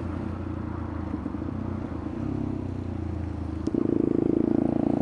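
Motorcycle engine running steadily on the move, getting suddenly louder about three-quarters of the way in.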